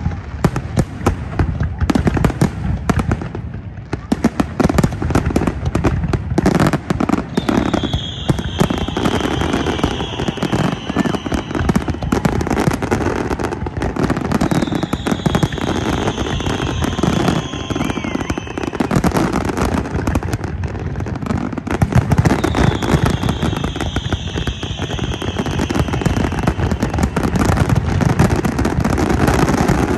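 Large fireworks display: a dense, continuous barrage of shell bursts and crackling, with three long falling whistles about seven seconds apart.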